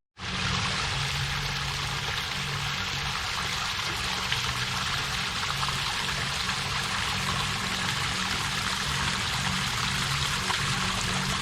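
Steady, even rushing of a waterfall, its falling water making a continuous hiss that sets in after a momentary dropout at the very start.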